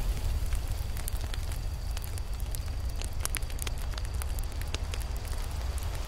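Campfire burning, with irregular sharp crackles and pops over a steady low rumble.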